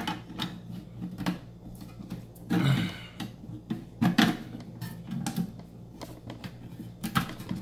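Removable shelf being worked back into a small pistol safe: scattered knocks and clunks against the safe's walls, with a longer scraping sound about two and a half seconds in.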